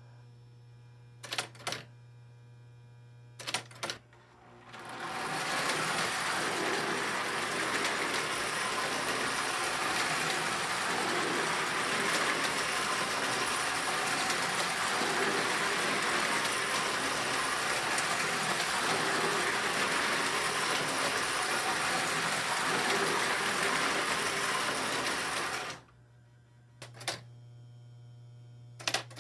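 An O27 tinplate toy train runs past on the track loop, its motor and wheels making a loud, even rattle for about twenty seconds. It starts about four seconds in and cuts off near the end. Before and after it there is a steady electrical hum with a sharp click every two seconds or so.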